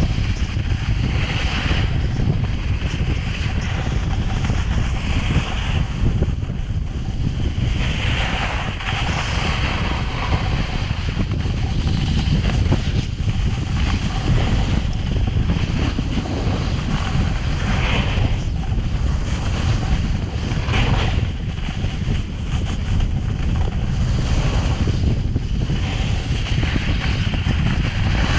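Wind buffeting a GoPro camera's microphone during a downhill snowboard run: a steady low rumble. Hissing surges come and go every few seconds as the snowboard slides and scrapes over the snow.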